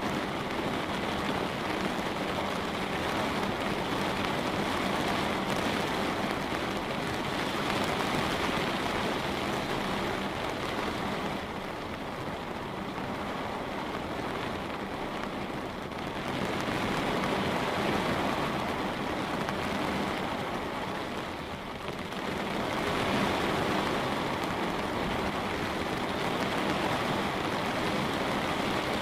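Light rain falling on a window: a steady, even patter that eases off a little twice before picking up again.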